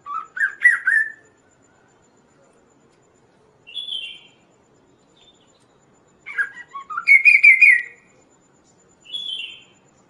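Chestnut-capped babbler (kaso-kaso) singing: two loud phrases of rapid whistled notes about six seconds apart, each followed a few seconds later by a shorter, higher call that falls in pitch.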